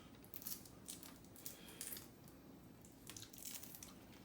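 Faint, irregular crackles of lychee rind being cracked and peeled by hand.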